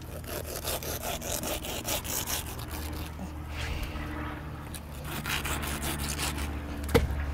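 Serrated knife sawing through bull shark meat along the cartilage backbone: a rapid series of rasping back-and-forth strokes, said to sound like grinding through sandpaper, over a steady low hum. A single sharp click comes near the end.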